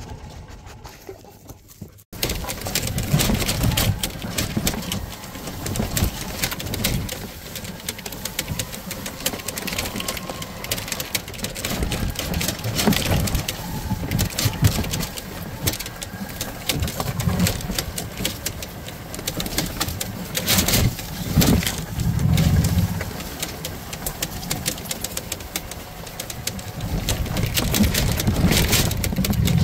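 A small vehicle engine running with a low rumble while the machine rattles and knocks over a rough farm path. The sound comes in suddenly about two seconds in.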